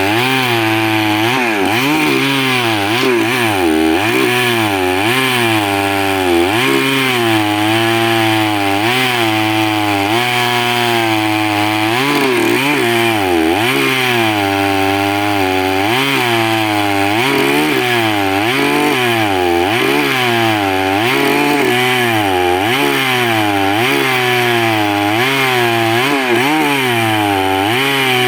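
Two-stroke chainsaw cutting wood lengthwise into planks, running steadily. Its engine pitch sags and recovers about every one and a half seconds as the chain loads up in the cut.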